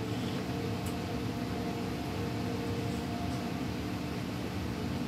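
Steady mechanical hum with several faint held tones, like a fan or appliance running in a small room, with a couple of faint clicks about a second in and past the middle.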